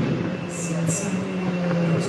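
Cupra Leon Competición TCR touring car's turbocharged four-cylinder engine running at speed as the car pulls away, a steady drone with a small step in pitch about a second in.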